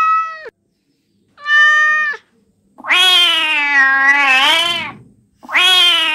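Domestic cat meowing: a short meow about a second and a half in, then a long, drawn-out meow that rises and falls, and another like it starting near the end.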